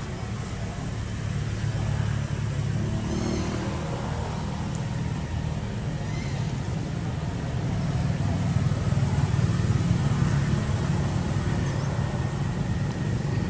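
A low, steady motor-vehicle engine rumble that grows louder about eight seconds in, then eases slightly.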